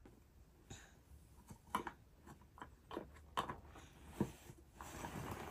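Faint, irregular clicks and knocks of wooden toy train track pieces being handled and fitted together, with a soft rustle near the end.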